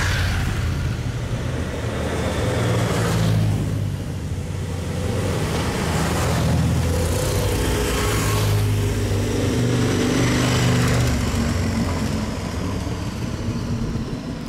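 Several motorcycles riding past one after another, the sound of engine and tyres swelling as each one goes by.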